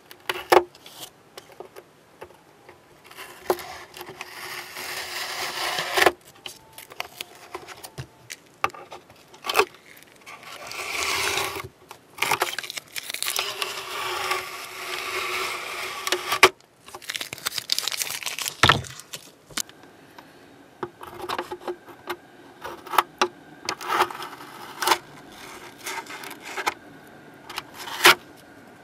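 Masking tape being peeled off a plastic ship model with metal tweezers. Several stretches of peeling noise a few seconds long, with sharp clicks of the tweezer tips on the plastic between them.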